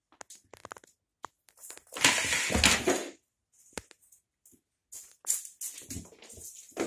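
Irregular rattling clatter and short knocks, with a louder, longer rattling scrape about two seconds in and more scattered knocks near the end.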